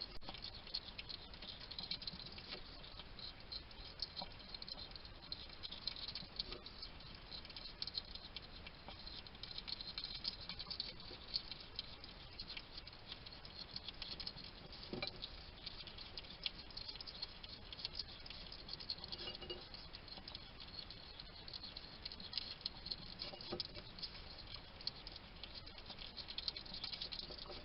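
Wild hedgehog eating: a steady run of quick, small crunching and smacking clicks as it chews its food.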